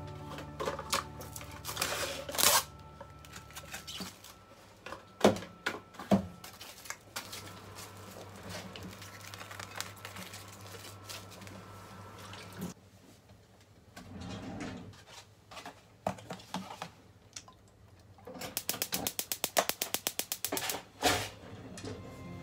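Scattered knocks and clatter of dishes and utensils being handled on a kitchen counter. Near the end a gas hob's igniter clicks rapidly for about two seconds, followed by a single louder knock.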